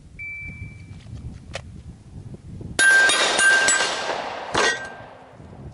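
Glock pistol fired in a quick string of about four shots, then one more shot about a second later, with steel targets ringing after the hits.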